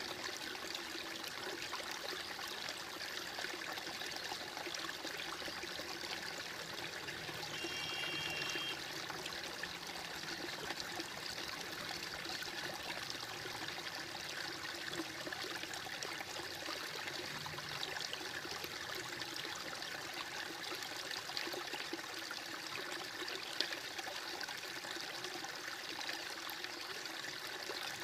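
Stream water trickling and splashing steadily, a continuous even babble.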